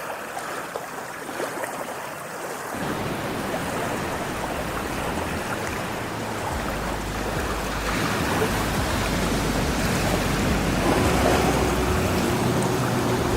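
Ocean waves washing in a continuous rushing noise. A deeper rumble comes in about three seconds in, and the surf grows gradually louder. A faint steady tone enters near the end.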